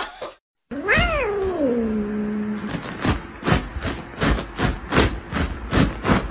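Orange tabby cat giving one long drawn-out meow that rises, falls and settles into a low held note, about a second in. It is followed by a quick run of short sharp clicks, about three or four a second.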